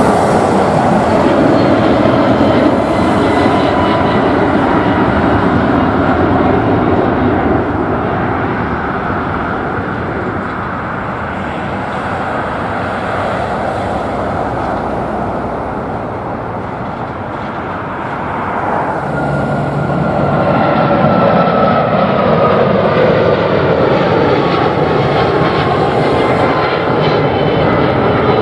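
Jet noise of a Boeing 777-200ER climbing out after takeoff, loud at first and then fading, with a falling whine. About two-thirds in, a four-engined Airbus A340-600 coming in to land grows louder, again with a whine that drops in pitch.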